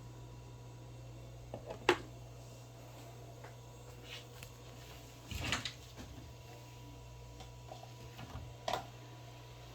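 Three light knocks and clicks of things being handled: a sharp one about two seconds in, a short cluster about halfway through, and another near the end, over a low steady hum.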